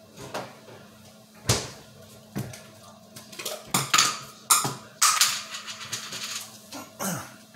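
Kitchen items being handled on a countertop: a string of irregular knocks and clinks of dishes and containers being picked up and set down, with a longer, noisier clatter just after five seconds.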